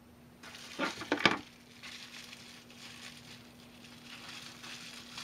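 Plastic packaging rustling and crinkling as small lathe parts are unwrapped and handled, with a couple of sharp clatters about a second in. A faint steady hum runs underneath.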